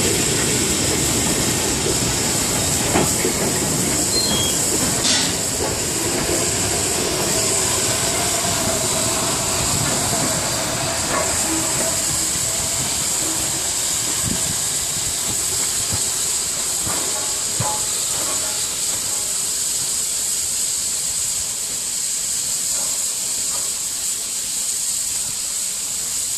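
A loose-coupled goods train of wagons rolling past over jointed track, rumbling and clicking, with a faint wheel squeal in the middle. A small steam tank engine at the rear hisses steam as it goes by, and the rumble fades as the train draws away.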